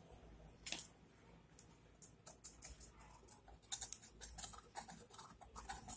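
Faint scratching and scraping of a pointed metal tool against a Bajaj Boxer motorcycle's cylinder head as carbon deposits are cleaned from the valve port, with a quick run of short scrapes in the second half.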